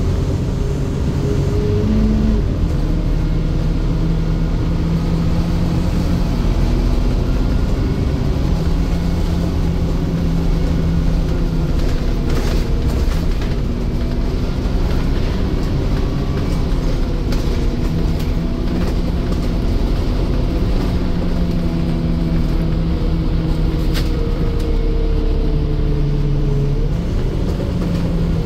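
Interior sound of a Scania N230UD Omnicity double-decker bus under way, its rear-mounted nine-litre five-cylinder diesel engine and drivetrain rumbling. The engine pitch climbs and drops several times as the bus accelerates, changes gear and eases off. A few sharp rattles sound about twelve seconds in and again near the end.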